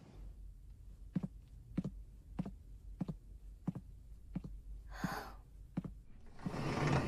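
Hard-soled shoes walking at an even pace on a hard floor, about one step every 0.6 seconds, over a steady low hum. Near the end, a longer, louder rustling noise as a wooden door is opened.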